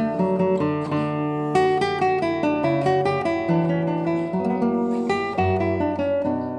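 Acoustic guitar music: a steady run of plucked notes and chords.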